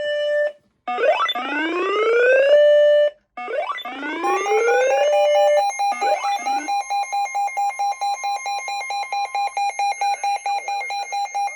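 Electronic emergency weather-alert tone: two rising, siren-like sweeps, then a steady two-tone alarm that pulses rapidly, several beats a second, and stops just before the end.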